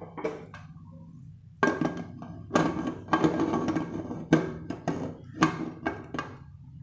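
Aluminium lid of a Diamond pressure cooker being set on the pot and worked into place: a string of about seven metal clanks and scrapes, some ringing briefly, starting about a second and a half in.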